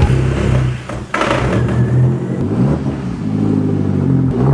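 2001 Audi TT Quattro 1.8T engine running with an enormous loud chatter from the bell housing, which the owner suspects is the stock dual mass flywheel letting loose.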